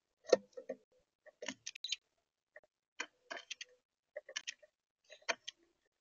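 Blue jay pecking at seed in a plastic bird-feeder tray, heard close up through the feeder's built-in camera: irregular clusters of sharp taps and clicks, a few strokes each, about once a second, the loudest near the start.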